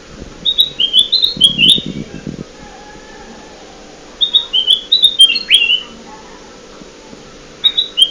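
Kutilang emas bulbul song played as a lure call: short phrases of about five quick, bright whistled notes, repeated three times a few seconds apart, with a brief low rumble under the first phrase.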